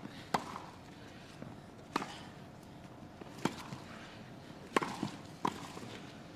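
Rally of tennis racket strokes: five sharp hits on the ball, about a second and a half apart at first, then two quicker ones near the end as the players volley.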